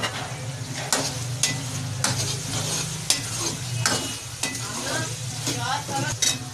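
A metal spoon stirring bitter gourd pieces and masala in a metal karahi, scraping the pan again and again every half second to a second, while the mixture sizzles. A steady low hum runs underneath.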